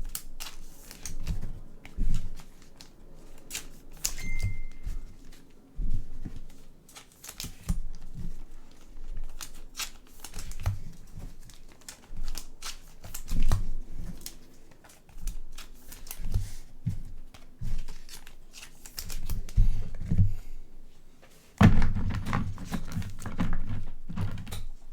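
Trading cards and plastic card sleeves being handled on a table: irregular rustling, sliding and light taps, with a louder crinkling stretch of packaging about 22 s in.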